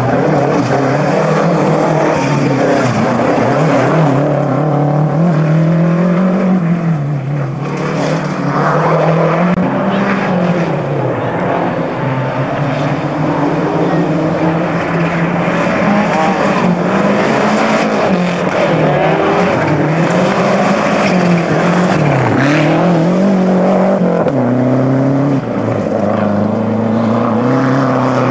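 Rally car engines driven hard on a tarmac stage, one car after another. The engine note rises and falls over and over through gear changes and lifts for corners.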